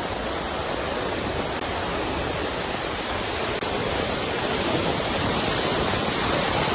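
Steady rush of moving water, like waves washing in, slowly swelling in loudness.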